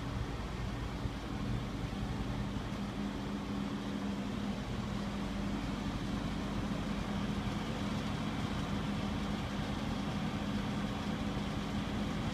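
Engine of a Liebherr MK88 mobile construction crane running steadily, a low even hum.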